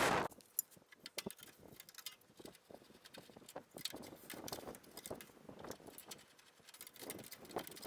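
Irregular light clicks, taps and clinks of hand tools and metal parts being handled while a truck's grille and headlight assemblies go back on.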